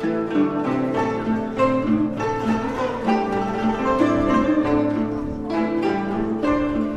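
Instrumental background music with plucked and bowed strings and a steady rhythm of short notes.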